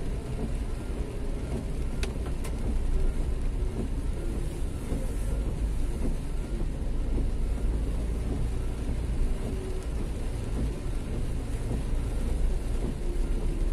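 City street traffic in the rain: a steady low rumble of vehicles with a haze of rain noise, and two short clicks about two seconds in.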